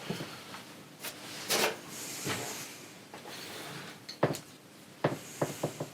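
Small metal clicks and knocks of a micrometer being worked on a freshly ground valve shim, with a short scrape about a second and a half in and a quick run of clicks near the end.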